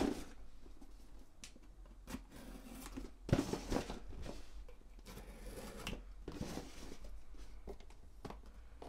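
Hands opening a cardboard box and handling the packaging inside: an irregular run of soft scrapes, taps and rustles.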